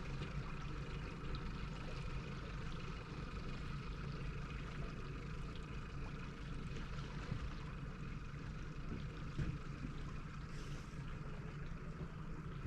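Boat motor running steadily, a low even hum with no change in pitch.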